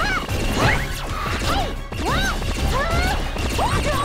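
Cartoon sound effects over music: crashes and whacks, with a string of short swooping pitched sounds that rise and fall.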